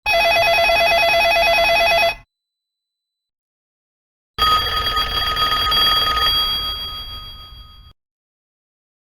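Synthesized telephone ring from a Yamaha MCP-MA7 mobile-phone sound chip. A rapid warbling trill lasts about two seconds and stops, then after a pause a second, bell-like ring starts and fades away over about three seconds.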